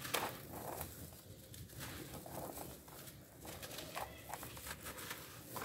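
Dry clumps of grainy red dirt crunching and crackling as they are crushed and crumbled between the hands, with grains trickling and pattering back into the loose dirt.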